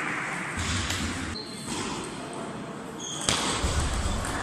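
Table tennis hall ambience, with a sharp ping-pong ball click about three seconds in and a couple of brief high squeaks.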